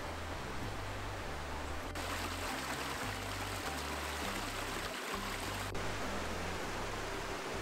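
Small mountain creek cascading down a rocky, mossy bed: a steady rush of water. It cuts in sharply about two seconds in and cuts away again near six seconds, with a softer hiss on either side.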